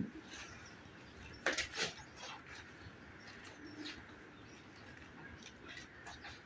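Faint outdoor background with birds calling, including a short low coo, and two sharp knocks close together about a second and a half in.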